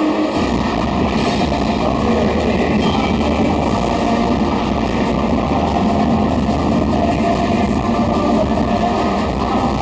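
Loud rock music with guitar, played over a sound system, with a heavy low rumble that comes in just after the start.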